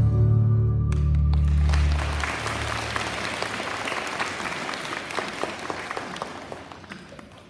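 Student string orchestra of violins and cellos ending a piece on a held chord that rings out and fades. About two seconds in, audience applause takes over and gradually dies down.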